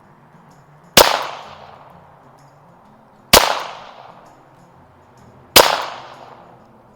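AMT Lightning .22 LR semi-automatic target pistol fired three times, a little over two seconds apart, in slow aimed fire. Each shot is a sharp crack that rings out and fades over about a second.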